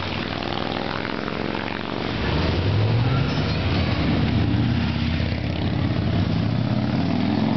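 Ferrari F355's V8 engine running at low revs as the car drives slowly past, getting louder about two seconds in as it comes close, its pitch rising and falling slightly with the throttle.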